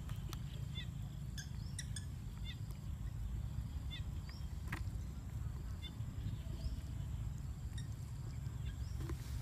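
Outdoor ambience: a steady low rumble with many short, high chirps of small birds scattered through it.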